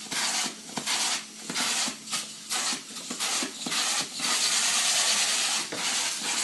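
Upholstery rinsing tool drawn back and forth over a fabric couch cushion in quick strokes, a noisy rub with each pass at about two a second. The strokes run almost together for a stretch past the middle.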